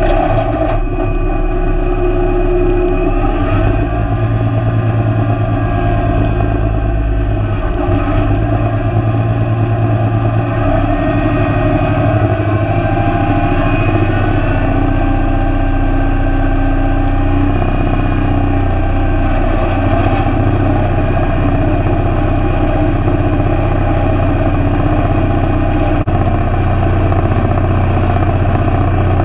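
Farm tractor engine running steadily and close up, driving a Sitrex four-basket rotary hay tedder. Its steady tones shift in pitch now and then as the load and speed change.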